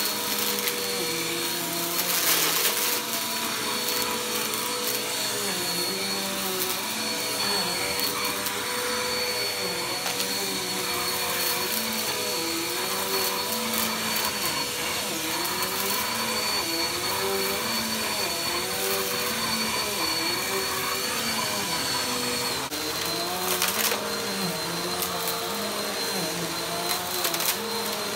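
Upright bagless vacuum cleaner running over heavily soiled carpet, its motor whining steadily. Now and then there is a short crackle as debris is sucked up.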